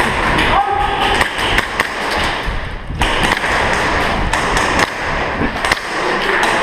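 Rustling movement noise with many irregular sharp clicks and knocks, typical of an airsoft player's gear and footsteps picked up on a body-worn action camera.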